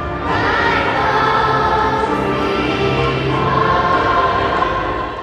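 Children's choir singing together, with long held notes.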